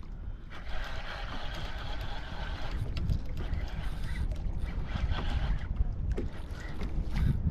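Water sloshing and splashing against a kayak hull over a constant low rumble of wind on the microphone.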